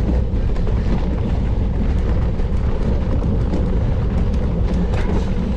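Wind rumbling on the onboard camera's microphone of a mountain bike ridden at speed, with tyre and riding noise and scattered light ticks and rattles.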